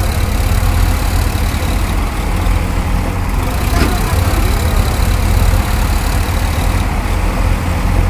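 Sonalika tractor's diesel engine running steadily with a deep low rumble as it pulls a trailer.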